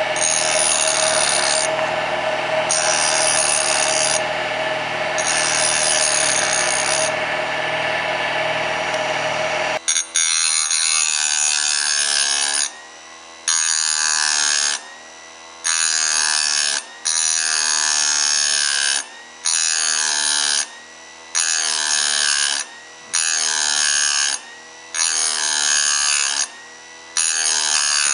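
Grinding wheel on a Bridgeport milling machine grinding down the worn, rounded-over dogs of a transmission gear. It runs steadily with a low machine hum for about ten seconds; then the hum drops out and the grinding comes and goes in regular passes about every two seconds, with short near-silent gaps between them.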